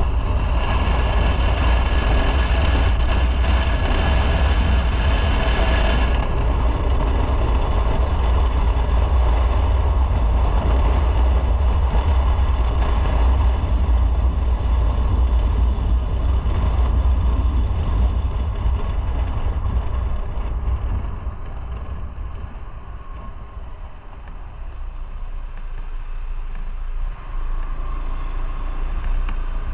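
Motorcycle running along a city road, its engine mixed with strong wind and road noise. It quietens about twenty seconds in as the bike slows behind traffic at a junction, then picks up a little again near the end.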